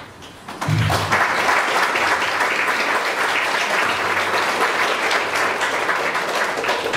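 Audience applauding: a room full of hands clapping, starting suddenly just under a second in and holding steady.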